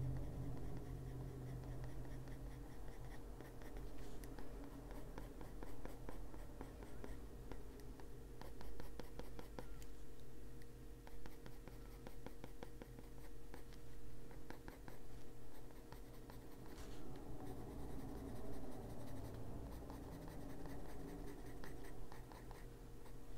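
Derwent Drawing Pencil shading on paper: many rapid scratchy strokes, over a steady faint hum.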